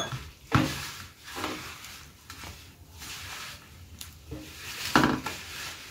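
Hand rubbing and kneading crumbly maida flour and ghee against a stainless steel plate: soft scraping, rustling strokes, the louder ones about half a second in and again about five seconds in. This is the mixing stage before the dough comes together.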